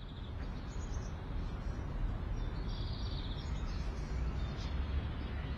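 Outdoor ambience: a steady rushing haze with a few faint, short bird chirps. It fades in at the start.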